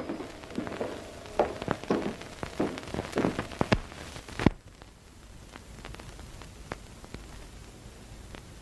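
Footsteps on a hard floor, about one every half second, ending in a louder knock about four and a half seconds in. After that there is only the faint hiss and crackle of an old optical film soundtrack.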